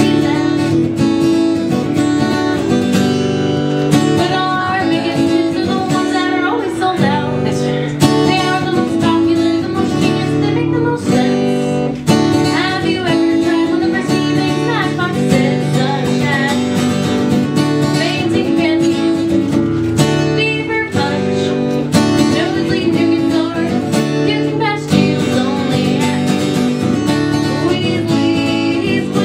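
Music: strummed acoustic guitar carrying a steady rhythm, with a melody line over it.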